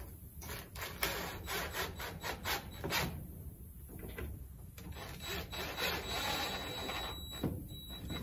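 Cordless drill driving screws into a wooden coop frame, in two runs, about a second in and again around five seconds in, with the screws grinding into the wood.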